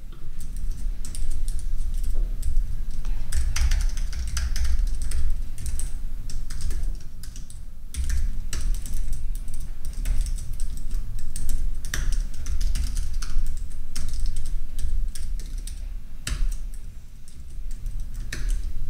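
Typing on a computer keyboard: irregular runs of key clicks with short pauses as code is entered, over a low rumble.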